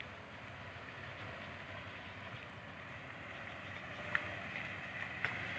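Quiet, steady outdoor background noise with a faint low hum, and two short high chirps about four and five seconds in.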